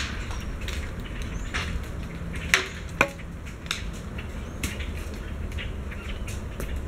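Acorns dropping from an oak tree and landing in scattered sharp ticks and knocks. The two loudest come about two and a half and three seconds in, with a few fainter ones around them.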